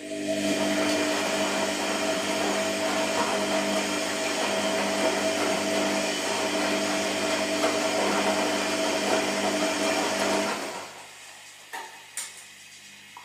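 Washing machine motor running loudly: a steady hum under a whirring rush that starts suddenly, holds for about ten seconds, then cuts out, followed by two short clicks.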